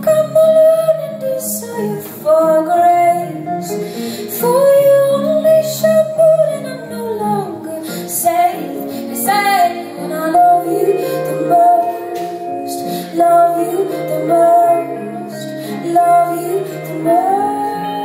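A woman singing a slow melody live, with held, bending notes, over acoustic guitar accompaniment.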